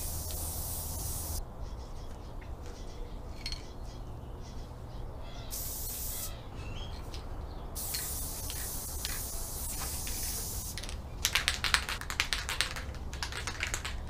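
Aerosol can of spray adhesive hissing in several bursts, the longest about three seconds. A quick run of sharp rattling clicks follows near the end.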